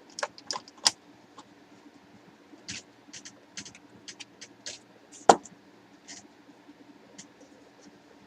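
Screwdriver and metal tube-light fitting clicking and tapping while the electromagnetic choke is unscrewed and taken off: a quick run of clicks at the start, scattered small ticks after, and one loud knock about five seconds in.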